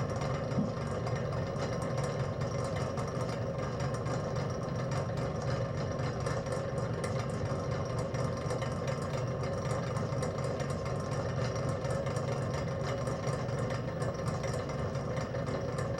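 A spinning machine idling: a steady, unchanging mechanical hum with a low drone and a clear mid-pitched tone over it.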